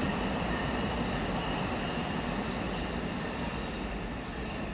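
Amtrak passenger train passing, a steady rumble of wheels on the rails that slowly fades as it moves away.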